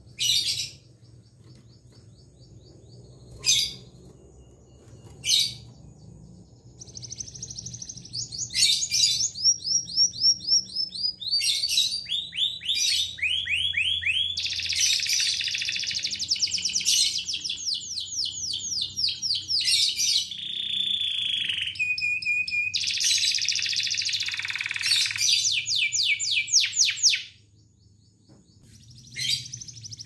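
Domestic canary singing: a few short single calls at first, then a long unbroken song of fast trills and rolls. It breaks off near the end and starts again just before the close.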